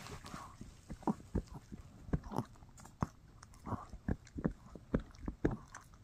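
A Shih Tzu chewing a No-Hide bully stick: irregular crunching bites and clicks of teeth on the chew, about three a second.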